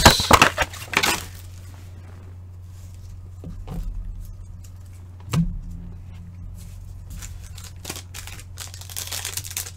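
Trading-card blaster box and its plastic wrapping being handled and torn open: crinkling and tearing in the first second, a few light knocks in the middle, then crinkling again near the end, over a steady low hum.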